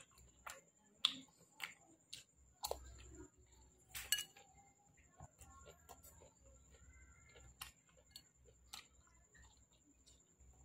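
Close-up eating sounds: wet lip smacks and mouth clicks of someone eating soft fruit, scattered irregularly, a few louder sharp ones about a second in and about four seconds in.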